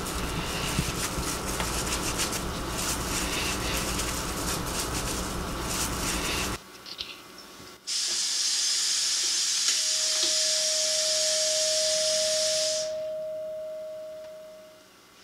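Dense noise with a low hum that cuts off suddenly about six and a half seconds in. Then a kitchen tap runs into the sink with a steady hiss for about five seconds, joined by one sustained mid-pitched tone that fades out near the end.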